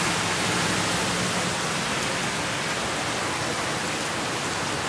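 Heavy rain pouring down, a steady hiss. For the first second and a half a low engine hum sits underneath it, from vehicles driving through the floodwater.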